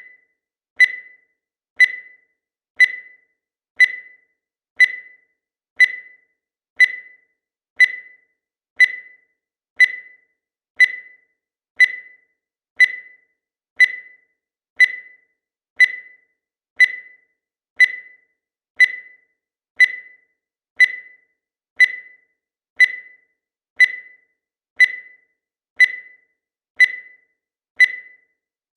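Digital timer beeping once a second as it counts down: short, high, identical beeps, each fading quickly, in a steady rhythm.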